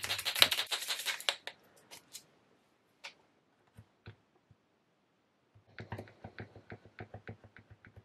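White pigment paint marker being primed. For the first second and a half it is shaken, a fast rattle of its mixing ball; then come a few single clicks, and from near the end of the middle the nib is tapped on the paper about six times a second to pump the paint down into the tip.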